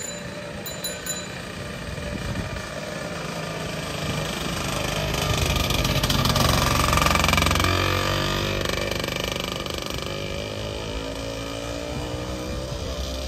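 A motor vehicle drives past close by: its engine grows louder to a peak about halfway through, then fades with its pitch falling as it moves away.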